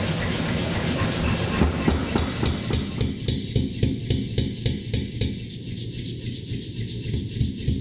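Rapid, evenly spaced hammer blows on steel, about five a second, with a grinding rub under them.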